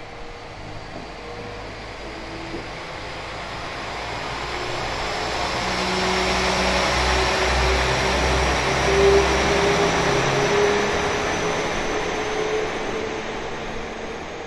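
Diesel train approaching and passing through the station. Engine drone and wheel-on-rail noise build to a peak a little past halfway and then ease off.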